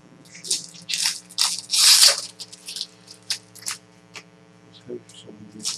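Trading-card packs and cards being handled: a run of short crinkling rustles, the loudest about two seconds in, growing sparse after the halfway point, over a faint steady hum.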